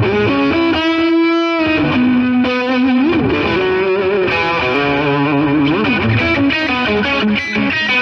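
Distorted electric guitar music playing a lead melody of held notes with bends and vibrato.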